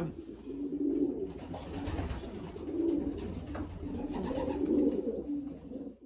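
Racing pigeons cooing, a run of low coos repeating every second or so.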